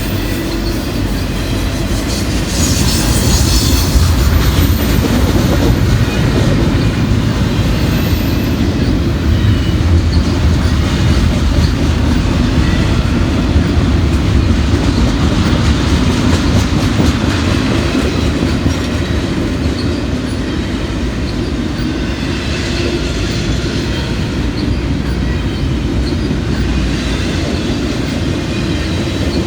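Double-stacked intermodal freight cars rolling steadily past, their wheels clicking over the rail joints under a continuous rumble.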